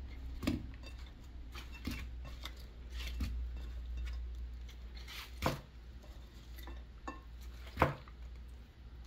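Kitchen handling sounds as onion quarters and garlic and ginger slices are packed into a cheesecloth bag: scattered light clicks and knocks of food pieces and plate, with two sharper knocks about five and a half and eight seconds in, over a low steady hum.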